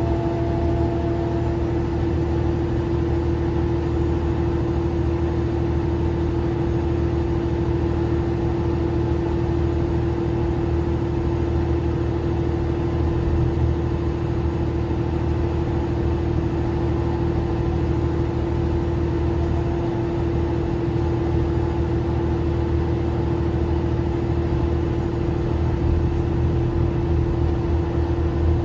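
Mercedes-Benz Citaro C2 LE city bus heard from inside the cabin while driving at a steady speed: an even engine and road drone with a steady whine held at one pitch.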